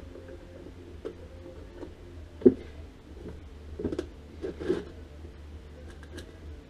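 Scattered metal clicks and knocks of hand work on a Stihl MS 360 chainsaw as its bar, chain and side cover are fitted and adjusted, with one sharp knock about two and a half seconds in and a few more a little later.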